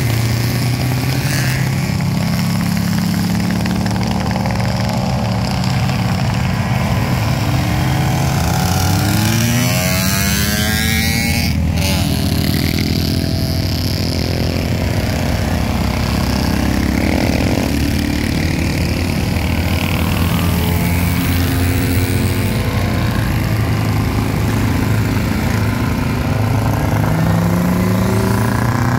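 Vintage racing motorcycles riding past in a steady stream, several engines running together. Twice, about a third of the way in and again near the end, a rising engine note stands out as a bike accelerates past.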